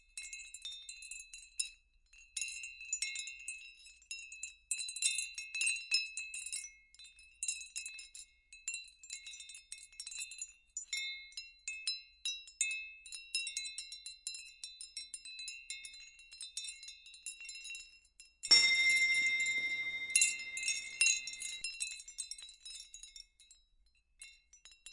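Chimes tinkling in an irregular patter of high, ringing metallic tones. One louder strike about eighteen seconds in rings on for a couple of seconds.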